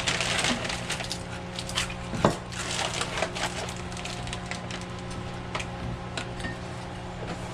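Onion being peeled and handled on a cutting board: dry crackling and scattered knocks, with one sharp knock about two seconds in. A steady kitchen hum runs underneath.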